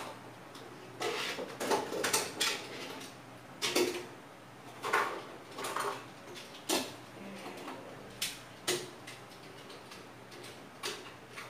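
Irregular clacks and knocks of small hard objects being handled, about a dozen of them, thinning out in the last few seconds.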